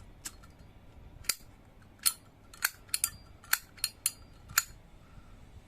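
Zippo lighter lid flipped open and snapped shut over and over: about nine sharp metallic clacks, unevenly spaced, stopping a little after halfway. The lighter's cam has been filed as a modification, which the owner says makes it click twice.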